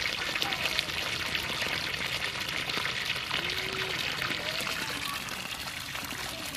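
Water pouring steadily and hard from the outlet of a Hiflow 0.5 hp deep-well pump in a 3-inch casing, a strong, heavy flow.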